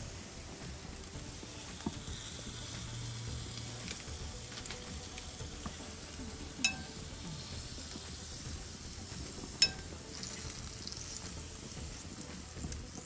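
Food sizzling as it cooks, a steady hiss, with two sharp clicks about three seconds apart midway through.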